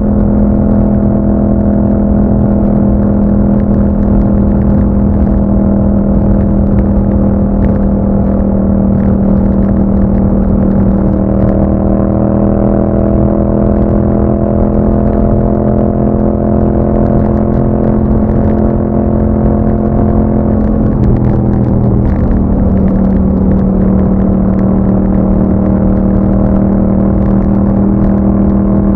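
Yamaha MT-07's 689 cc parallel-twin engine running through an Akrapovic exhaust on the move, holding a steady engine note. Its pitch shifts slightly a few times, with a brief change about two-thirds of the way through.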